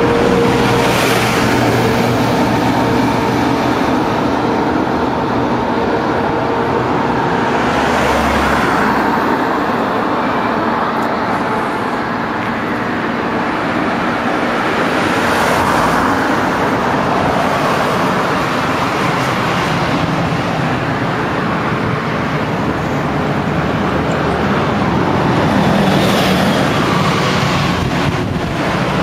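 Steady road traffic, with vehicles passing every several seconds and a motor scooter going by near the end.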